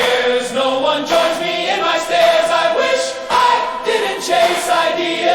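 Music: choir-like sung vocals holding and gliding between notes, with no clear lyrics.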